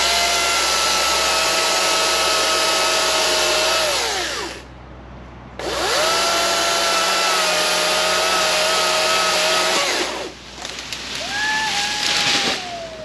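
Greenworks Pro 60V brushless battery chainsaw cutting through a small tree trunk in two long runs, a steady high whine that winds down in pitch each time the trigger is let go. Near the end a shorter run with a falling pitch and a rustling crash of branches as the tree falls.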